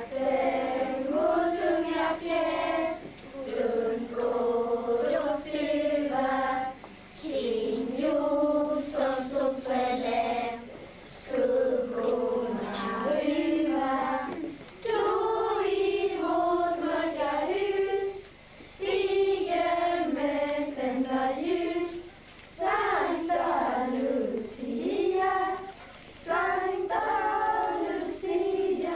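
A children's choir of Lucia singers singing a song together, in sung phrases of a few seconds each with short breaks for breath between them.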